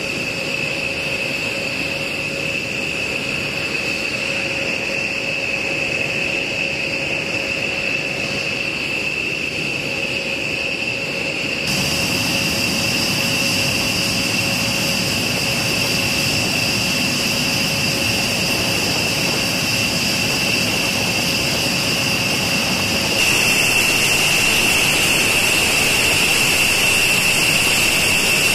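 B-1B Lancer jet engines running steadily: a high whine over a rushing hiss. The sound steps up in loudness twice, about 12 seconds in and again about 23 seconds in.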